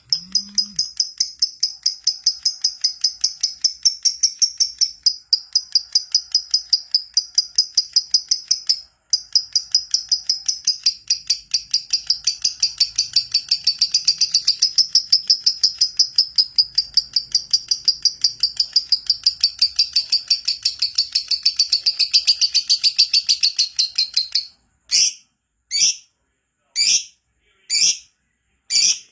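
Lovebird in full song: a long unbroken run of rapid, high chirps, about four a second, with a brief break about nine seconds in. Near the end the run stops and gives way to single sharp calls about once a second.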